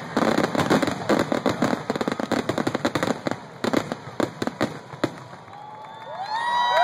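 Fireworks going off in a rapid crackling, banging barrage that thins out after about five seconds. Near the end a crowd starts cheering and whooping.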